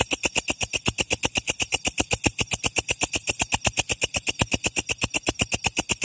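Belalang kecek (walang kerik), a large katydid, stridulating: a steady, even train of sharp chirps at about nine a second.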